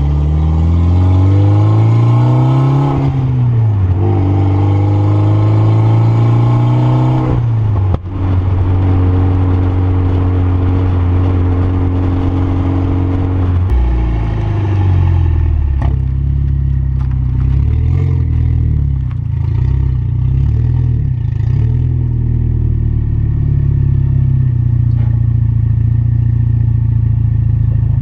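Mitsubishi Lancer Evolution X's turbocharged four-cylinder engine pulling up through the revs during a drive, with gear changes about three and eight seconds in. It then runs at lower, uneven revs for the second half.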